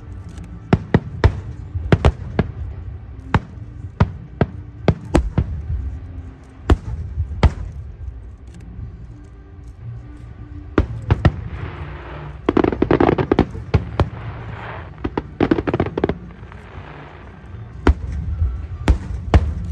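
Fireworks display: aerial shells bursting in an irregular run of sharp bangs, with a spell of dense crackling in the middle, over a steady low rumble.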